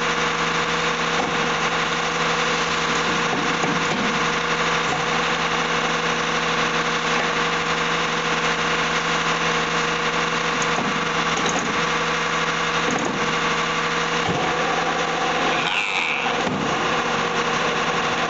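A machine running with a steady, unchanging hum, with a few faint knocks of a hand tool on metal.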